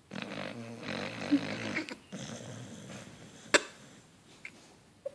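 Beagle snoring in its sleep: one long pitched snore lasting about two seconds, then a softer breath. A single sharp click comes about three and a half seconds in.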